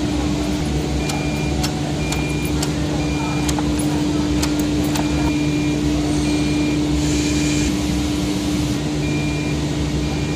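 Lock and hinge milling machine running with a steady motor hum. Short high beeps recur about once a second throughout, and sharp clicks come in the first half.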